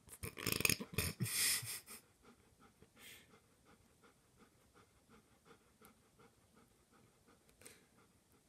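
A dog panting, with quick, faint, regular breaths about three a second. For about the first two seconds a loud rush of noise drowns it out.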